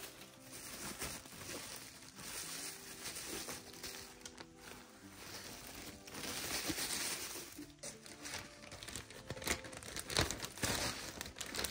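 Crumpled paper and plastic wrapping crinkling and rustling as it is handled and pulled from a cardboard box, with irregular bursts of rustling, loudest around the middle and near the end.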